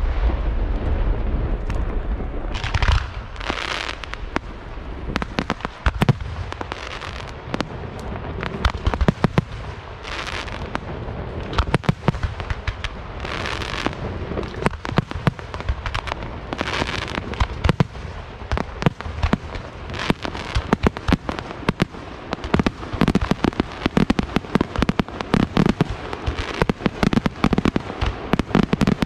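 Aerial fireworks shells bursting in quick succession, with sharp bangs, deep booms at first and swells of crackling hiss. From about two thirds of the way in, the bangs come thick and fast in a rapid barrage.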